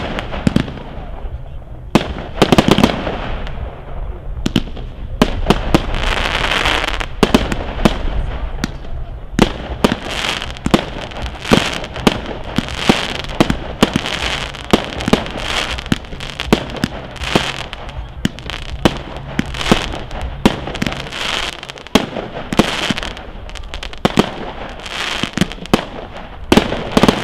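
Aerial firework shells bursting in a rapid series of sharp bangs, about one to two a second, with crackling stars and hiss between the reports.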